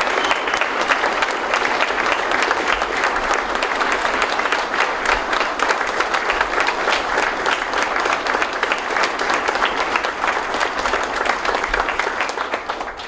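Large audience applauding steadily, a dense patter of many hands clapping that fades out near the end.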